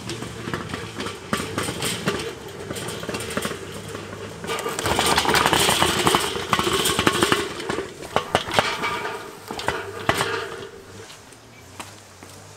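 Kettle grill being rolled on its two wheels over concrete and paving slabs, the wheels and metal legs rattling and clattering, loudest about halfway through and fading near the end.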